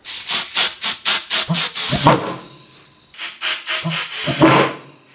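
Single-chamber gasoline pulsejet engine sputtering as it tries to start: two bursts of rapid, irregular popping, each dying out after a second or two instead of settling into a steady run.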